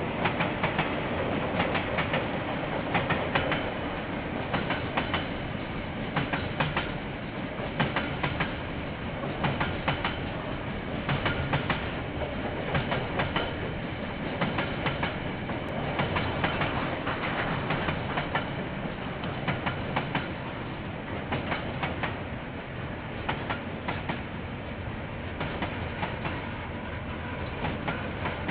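A freight train of container wagons rolling past, its wheels clicking over the rail joints in repeated clusters over a steady rumble.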